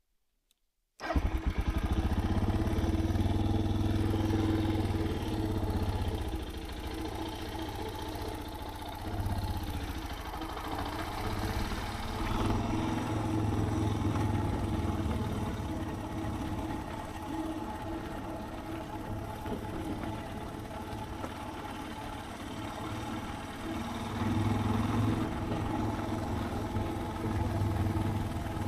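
Suzuki DR650's single-cylinder four-stroke engine running as the motorcycle is ridden, its level rising and falling with the throttle. It cuts in abruptly about a second in, after near silence.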